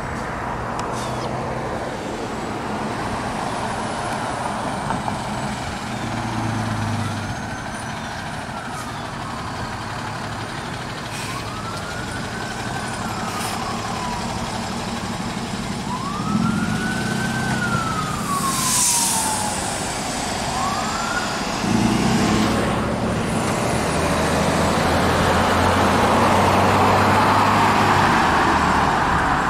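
Fire-rescue ambulance siren wailing in slow rising and falling sweeps, broken by a few short, low horn blasts. Engine and road noise run underneath and grow loudest near the end as the vehicles pass close.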